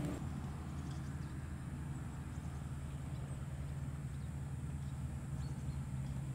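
A steady low rumble of outdoor background noise, with a few faint, short, high chirps scattered through it.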